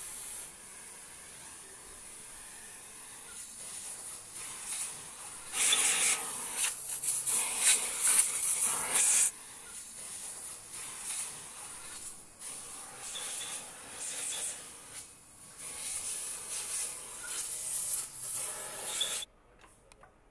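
Hissing and rubbing noise from pneumatic assembly tools working on an engine block, coming in irregular bursts, loudest from about six to nine seconds in, and cutting off suddenly just before the end.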